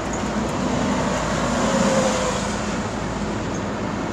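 Steady road traffic noise, a continuous rumble and hiss of passing vehicles.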